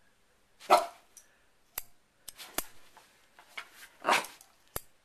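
Corgi barking in short, separate barks, about four in all, the first the loudest, with a few sharp clicks between them. The dog is barking at a hair clip being opened and closed.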